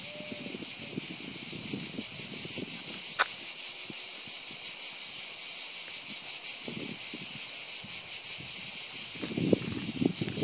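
A chorus of cicadas buzzing steadily and loudly, a high, even, finely pulsing drone. Low rustles and thumps come and go near the start and near the end.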